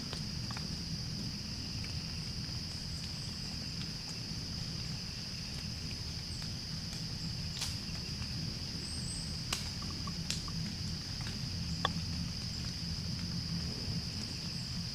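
Footsteps of a person walking through woodland, crunching steadily underfoot with a few sharp snaps. A steady high-pitched drone runs underneath.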